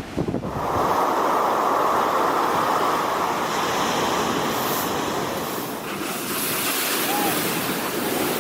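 Steady rush of surging water and waves, turning brighter and hissier from about six seconds in.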